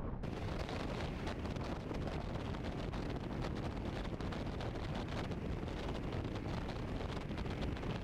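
Steady wind buffeting on the microphone of an electric motorbike riding at road speed, a constant low rumble and rush of air with no engine note.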